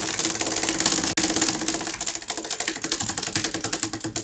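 Prize wheel spinning, its pointer clicking rapidly against the pegs, the clicks slowing and spacing out as the wheel loses speed.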